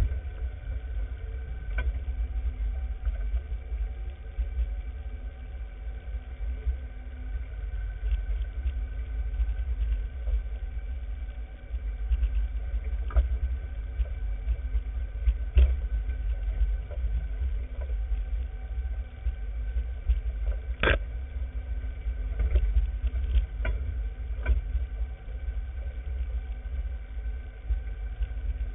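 An off-road vehicle's engine running steadily as it drives over a rough, rocky trail, under a heavy low rumble, with scattered knocks and jolts from the bumps. The sharpest knock comes about three-quarters of the way through.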